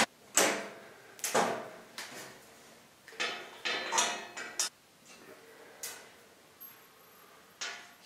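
Sheet-steel smoker box being handled: a series of separate metallic clanks and rattles, with tools and hardware set down on its top and its hinged steel door swung open.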